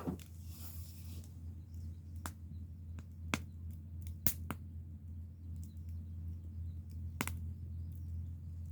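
Wood fire crackling, with a few sharp, irregular pops over a steady low rumble.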